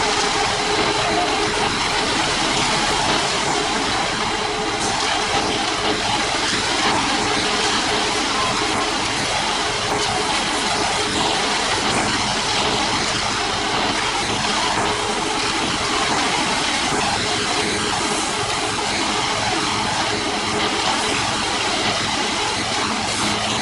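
Heavy construction machinery running steadily: a continuous engine and mechanical din with a faint steady hum, unchanging throughout.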